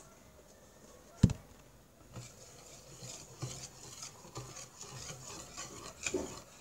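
A single sharp knock about a second in, then a hand whisk beating crêpe batter in a bowl: repeated scraping strokes, about two or three a second, as the milk is worked in.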